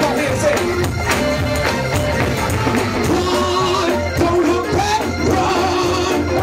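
Live gospel music in the Pentecostal church style: a band with a strong bass line and a steady percussive beat, with voices singing over it.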